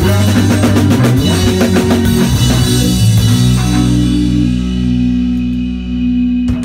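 Rock band playing live: electric guitars, keyboard and drum kit. The full band plays for about three seconds, then a held chord rings out as the song ends, with one last sharp hit near the end.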